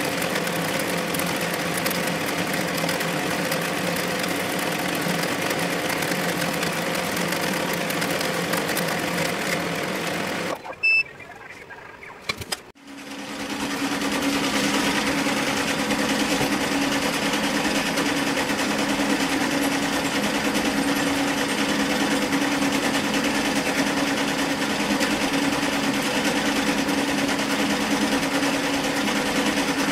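Redline Mini multi-needle embroidery machine running steadily while it stitches. About eleven seconds in, the sound drops out briefly with a short electronic beep. Then a steady machine hum with a lower, more even tone takes over.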